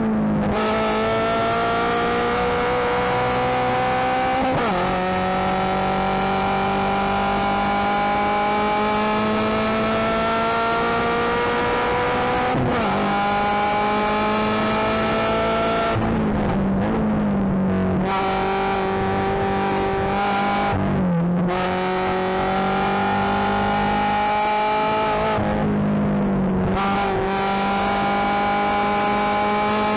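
Subaru BRZ race car's 2.0-litre flat-four engine heard from inside the cabin at racing speed. The engine note climbs steadily under throttle and drops sharply at each gear change or lift, several times over.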